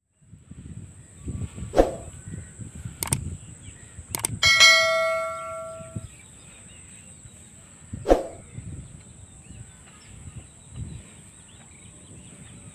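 Subscribe-button sound effects: several sharp mouse clicks, then a bell notification ding about four and a half seconds in that rings out for over a second, and one more click near the end. Under them, low outdoor field noise and a steady high-pitched tone.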